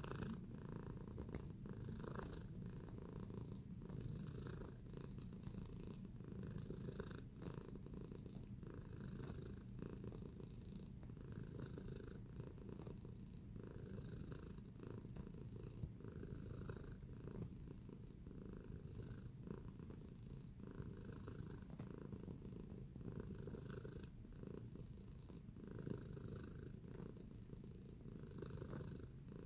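Domestic tabby cat purring steadily, close up, the purr swelling and easing in a regular cycle about every second and a quarter.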